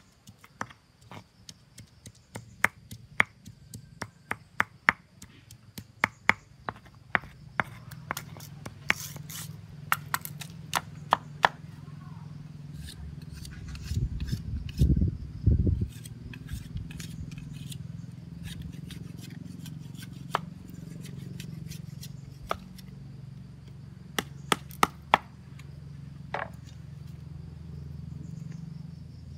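Hand stone pounding crushed root on a flat grinding stone: sharp stone-on-stone knocks about twice a second for the first dozen seconds. Then come a couple of loud dull thumps and a few scattered knocks, with a low steady hum underneath.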